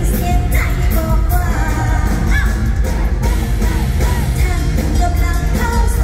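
Live mor lam (lam sing) band music played loud through a PA, with a heavy bass beat and a singer's voice over it.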